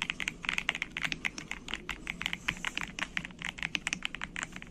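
Fast typing on an Aula F99 Pro wireless mechanical keyboard: a continuous, rapid run of keystroke clacks, many strokes a second.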